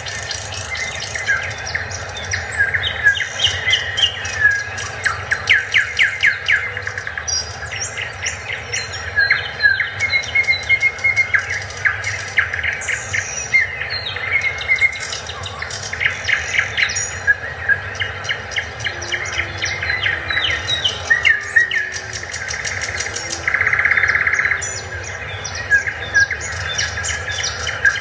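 Several birds chirping and singing at once, with overlapping chirps, whistles and rapid trills throughout, over a steady low background hum.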